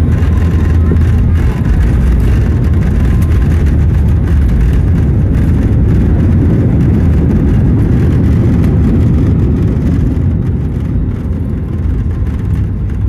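Jet airliner heard from inside the cabin over the wing during landing: a loud, steady low rumble of the engines and airframe that eases slightly near the end.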